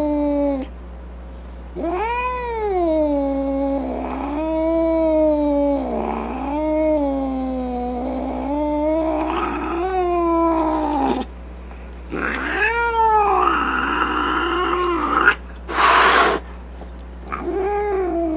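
Domestic cat yowling in a run of long, drawn-out wails that rise and fall in pitch, with a short sharp hiss near the end. This is the angry, threatening yowl-and-hiss of a cat on the defensive.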